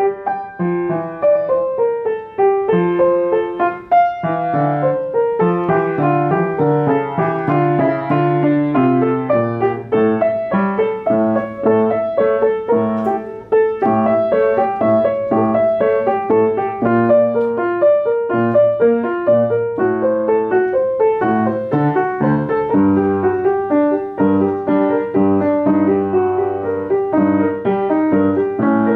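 Piano music, a flowing piece of many quick notes that runs on without pause.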